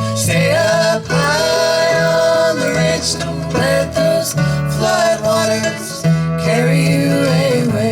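Folk band playing the instrumental introduction to a song: strummed acoustic guitar over a bass line, with a melody line sliding between notes above them.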